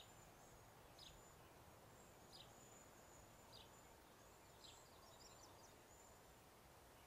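Near silence: faint outdoor room tone with a small bird chirping high and thin, about once a second.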